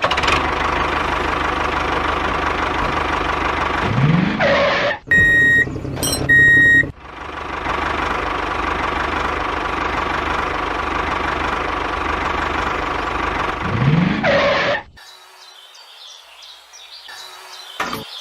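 Engine-like running noise with a rising sweep twice, and two short, clean beeps like a horn about five and six seconds in; it drops to a much quieter level about fifteen seconds in.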